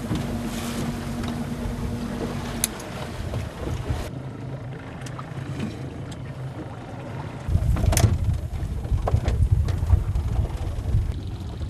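Boat engine running at low speed while the boat is manoeuvred, a steady hum for the first couple of seconds over a low rumble. About seven and a half seconds in, a louder low rumble sets in, with a sharp knock just after.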